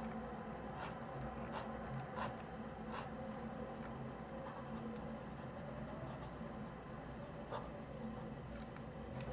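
Extra-fine fountain pen nib drawing strokes on thin paper: four short strokes about a second apart in the first three seconds, then quieter writing, with one more stroke near the end. A steady low hum runs underneath.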